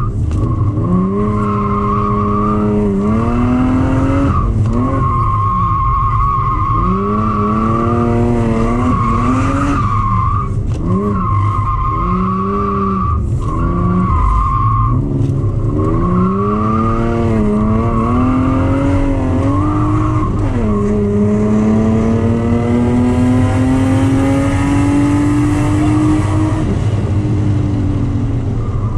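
Race car driven hard on track: the engine revs up and drops again every second or two while the tyres squeal steadily, breaking off briefly between slides. In the last third the squeal fades and the engine pitch climbs in one long, slow pull before easing off near the end.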